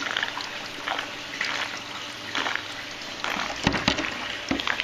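Water running and trickling over the RP-4 shaker table's wet concentrate and into its trough and catch basin, with a couple of low thumps near the end.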